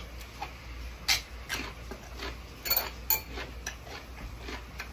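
Meal-table eating sounds: chopsticks and a spoon clicking and clinking against dishes and bowls, with chewing. There are a few sharp, irregular clicks, the loudest about a second in and around three seconds in.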